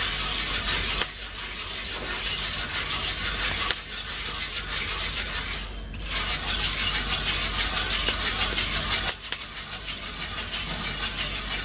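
Coffee beans tumbling in a hand-turned mesh drum roaster over a portable gas burner, with a steady hiss and scattered small clicks.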